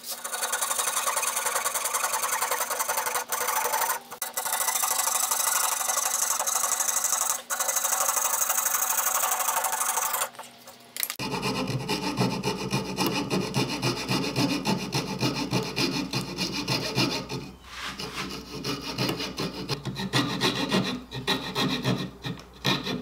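Fret saw cutting out small letters in MDO plywood: fast back-and-forth strokes of the fine blade, with a few brief pauses. About 11 seconds in, a second run of choppier strokes follows.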